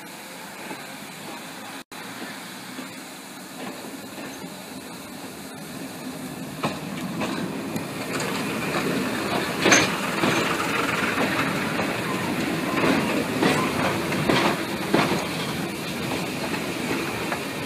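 Class 117 diesel multiple unit passing close by on the adjacent track, its running growing louder from about six seconds in, with scattered knocks and clicks of wheels over the rails. A steady hiss sits under the first seconds.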